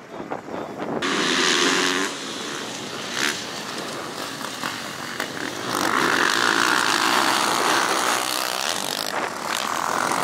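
Motocross dirt bikes racing past on a dirt track, their engines revving hard. The sound comes in loud about a second in and swells again in a longer pass in the second half.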